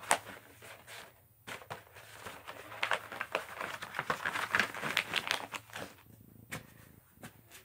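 Rolled paper posters being handled and rolled up: paper rustling and crinkling, with many short taps and clicks and one sharp tap right at the start.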